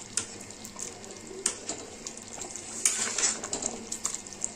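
A steel ladle stirring thin potato curry in a steel kadhai: gravy sloshing and pouring back off the ladle, with a few light knocks of the ladle against the pan.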